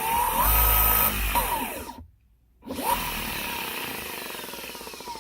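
Enertion Raptor 2 electric skateboard's hub motors whining as they spin up and hold a steady high pitch. The whine then falls, cuts out for about half a second, comes back sharply and slowly winds down: the motor noise the owner calls weird.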